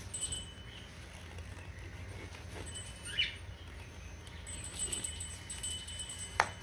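Light workbench handling sounds: small scrapes and clicks as a plastic CA glue bottle is squeezed and worked against balsa-wood parts, busiest in the second half, over a faint low hum. One short high squeak about halfway through.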